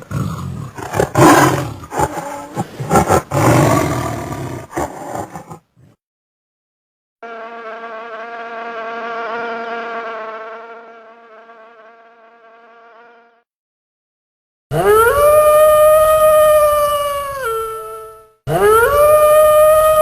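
Three animal sounds in turn: a loud, rough noise with sharp cracks for about six seconds, then an insect buzzing steadily with a wavering pitch, then two long canine howls that rise, hold and drop at the end.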